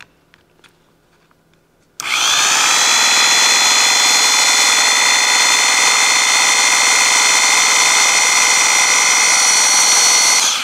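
Rewired junkyard reciprocating saw, run with its housing open on a test: its electric motor starts with a click about two seconds in, spins up to a loud, steady whine and runs for about eight seconds before cutting off near the end. The motor running shows the rewiring is correct.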